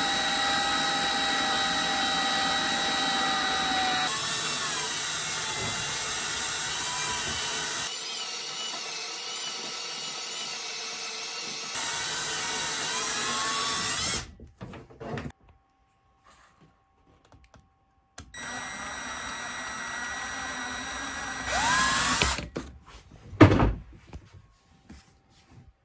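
Power drill turning a wire stripping machine's rollers, running steadily with a high whine for about fourteen seconds. It stops, then runs again more quietly for a few seconds. A sharp knock comes near the end.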